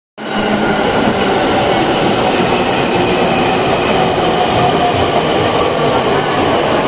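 E653 series electric train running past along the station platform: a steady rumble of wheels and running gear, with a few faint steady tones over it and a hollow echo from the station roof.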